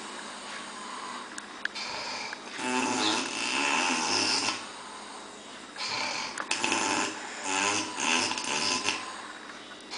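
Loud snoring: a softer snore about two seconds in, a long loud snore just before three seconds, then a run of shorter snores from about six to nine seconds, with quieter breaths between.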